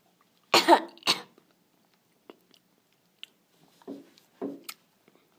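A boy coughing, with two loud coughs about half a second in and two weaker coughs near the end, as he reacts to a mouthful of plain ketchup.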